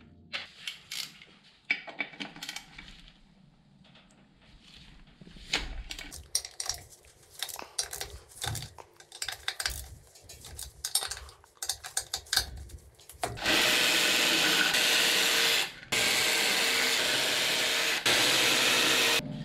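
A cordless 3/8-inch electric ratchet spinning out the motorcycle's rear wheel bolts in three steady runs, each starting and stopping abruptly, over the last six seconds. Before that, scattered clicks and knocks of tools and hands on the wheel.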